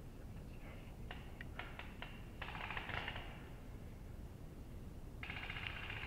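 Bursts of a rasping, rapidly pulsed animal call: a few short separate clicks, a louder burst lasting nearly a second about two and a half seconds in, and another beginning near the end.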